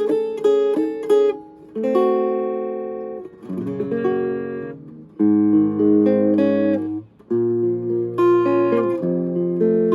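Vintage Silvertone hollowbody electric guitar played clean with no effects: a run of quick picked notes, then chords strummed and left to ring for a second or two each.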